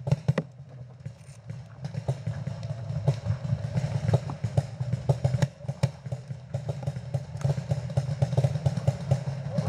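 Paintball markers firing: rapid, irregular pops of many shots, several a second and thickest from about three seconds in, over a steady low hum.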